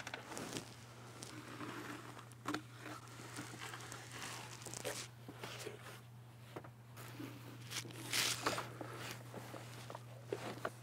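Loose blown-in attic insulation rustling and crunching under a person crawling across it over the ceiling joists, in irregular shuffles with a few sharp knocks. A steady low hum runs underneath.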